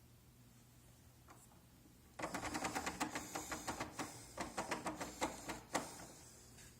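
Rapid metallic clicking and rattling of a door lock being worked with its key and handle, starting about two seconds in and lasting roughly three and a half seconds.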